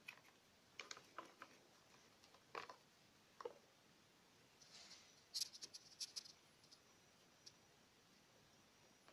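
Faint scattered clicks and taps of multimeter probe tips being placed and moved on the contacts of a small circuit board, with a quick run of sharper clicks about five seconds in.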